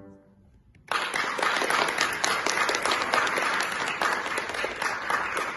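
The last note of the music fades away, then audience applause breaks out suddenly about a second in and keeps going.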